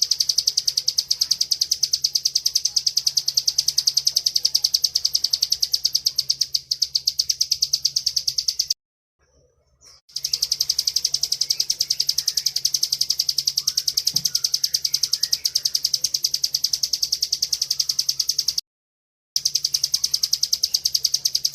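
Bar-winged prinia (ciblek) singing its long rattling 'ngebren' trill: a fast, even run of high notes. The trill breaks off twice for about a second.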